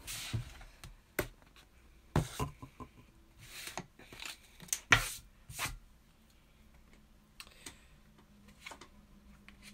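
Tarot cards being drawn off a deck and laid down on a desk: about half a dozen sharp taps and brief slides of card stock in the first six seconds, then a couple of fainter taps.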